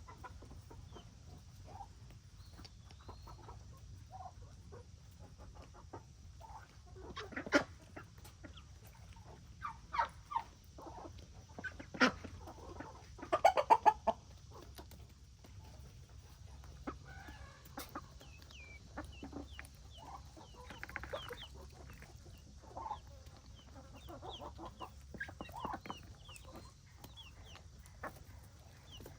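Domestic chickens clucking and calling in short, scattered bursts, with a few louder calls about 7, 10, 12 and 13 to 14 seconds in.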